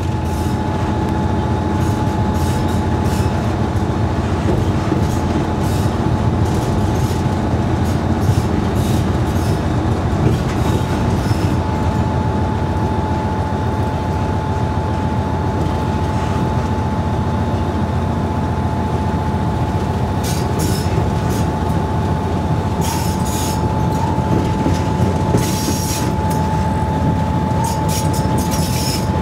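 Diesel locomotive 401Da-131 running steadily under way, heard from inside its cab: a constant low engine drone with a thin steady whine over it, and short rattling clicks from the wheels on the track, more frequent in the last several seconds.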